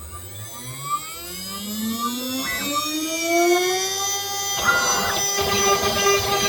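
CNC router spindle spinning up: a whine that rises steadily in pitch and then levels off at a steady tone. About four and a half seconds in, a rough, noisy sound joins it.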